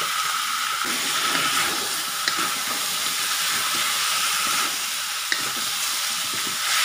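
Raw chicken pieces, just added, sizzling in hot oil in a wok as a spatula stirs them through onions and potatoes, with two brief clicks about two and five seconds in.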